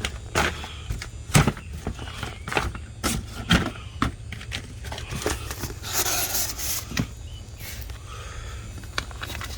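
Handling noise: scattered knocks and clicks with rustling, louder about six seconds in, over a steady low rumble.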